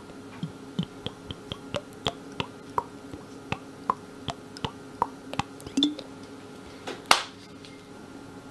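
Vegetable oil glugging out of a plastic bottle as it is poured onto flour: a quick series of short pitched plops, about three a second. A single louder knock comes about seven seconds in, over a faint steady hum.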